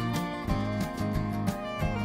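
Background instrumental music with a steady beat and a melody.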